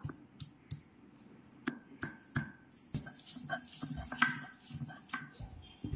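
Garlic and ginger being crushed for a spice paste: a run of irregular short knocks and taps, the loudest about four seconds in.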